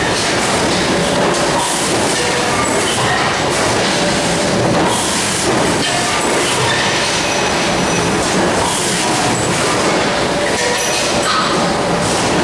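Loud, steady running noise of a vehicle, even throughout, with faint thin squealing tones over it: the abnormal noise the recording was made to capture.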